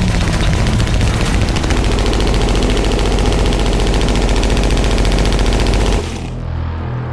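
PKM machine gun in sustained fully automatic fire with 7.62x54 rounds, a continuous rapid stream of shots that cuts off abruptly about six seconds in. A quieter, steady low drone follows.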